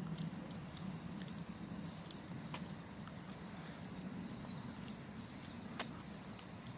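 Small birds chirping, scattered short high notes, over a steady low rumble, with a few sharp clicks.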